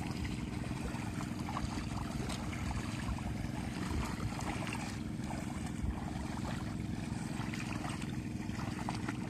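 Wooden push-weeders sloshing through the water and mud of a flooded rice paddy as they are shoved back and forth to tear up weeds and loosen the soil, with small splashes and knocks over a steady low hum.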